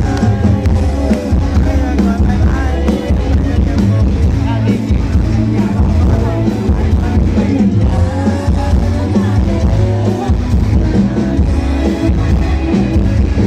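Live band music, loud and continuous, with a steady pulsing beat and heavy bass. A melody line slides up and down in pitch above it.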